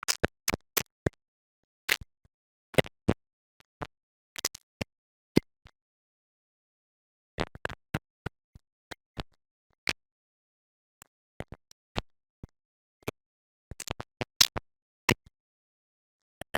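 Isolated clicks and pops of the kind a vocal de-click plugin picks out, heard alone on dead digital silence. They come at irregular spacing, sometimes a few in quick succession, with a gap of about two seconds in the middle.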